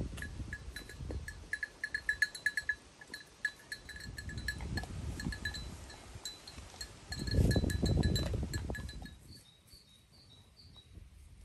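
Neck bells on grazing sheep and goats clinking in quick, irregular runs, dying away about nine seconds in. A low rushing noise swells up and fades about seven seconds in.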